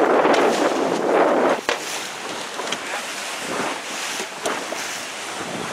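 Wind buffeting the microphone over open water. About a second and a half in it cuts off abruptly to a quieter wash of wind and waves slapping, with small splashes.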